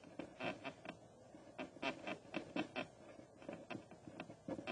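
Pen writing on a paper worksheet: a faint, uneven run of short scratchy strokes, a few each second.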